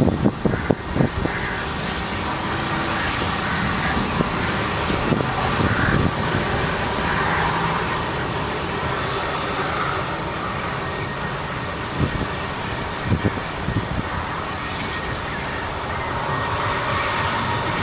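Twin rear-mounted turbofan engines of a Bombardier CRJ-type jet running as it rolls along the runway: a steady rushing noise, with a whine that rises in pitch near the end as the engines spool up. A few low thumps come at the start and again about two-thirds through.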